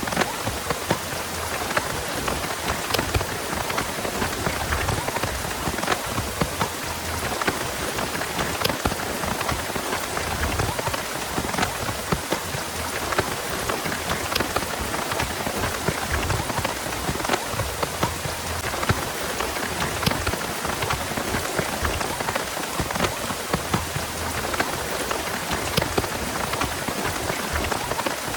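Heavy, steady rain falling, with many close drops striking sharply.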